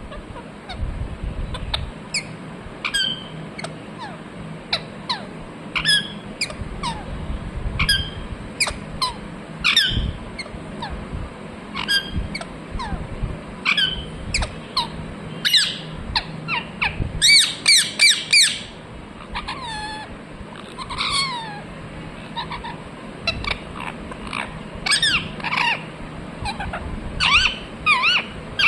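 Ringneck parrot giving short, sharp chirping calls, each falling in pitch, spaced a second or two apart, with a quick run of about six louder calls around the middle.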